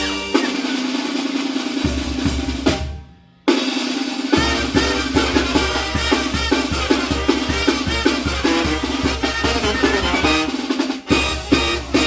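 Mexican banda (brass and wind band) playing an abajeño, with bass drum and snare drum hitting hard. The music cuts out about three seconds in, then comes back in half a second later.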